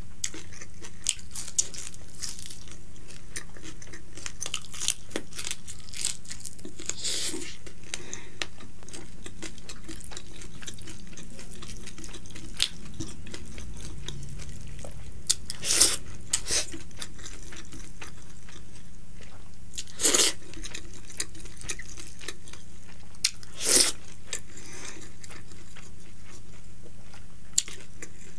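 Close-miked eating by mouth: chewing and crunching of fried fish and rice, with soft wet mouth clicks and a few louder smacks in the second half. A steady low hum runs underneath.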